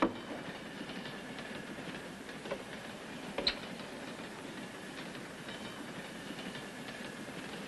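Steady running noise of a moving passenger train, heard from inside the carriage, with a sharp click about three and a half seconds in.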